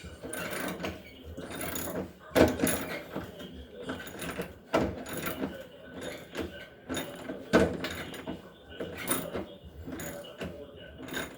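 Ratchet wrench clicking in uneven runs as it backs out a shock-absorber bolt on a Samsung front-load washer, with several sharper metal knocks from the tool.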